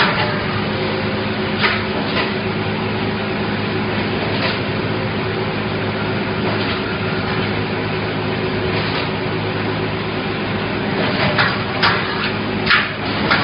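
Double-pull wire mesh welding machine running: a steady hum made of several even tones, with sharp metallic clanks now and then and a quick run of them near the end.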